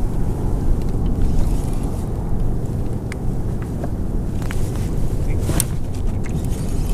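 Wind buffeting the camera microphone on open water: a steady low rumble, with a few faint scattered ticks over it.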